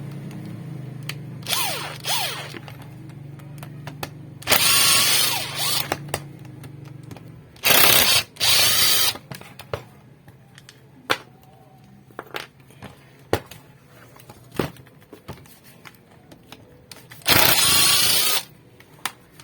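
Cordless drill-driver running in short bursts to unscrew a pneumatic nail gun's housing: three loud runs of about a second each, with small clicks of handling between them.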